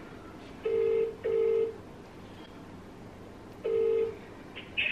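Phone ringback tone from a smartphone on speaker while a call rings out: a double ring about a second in, then one more ring near the end.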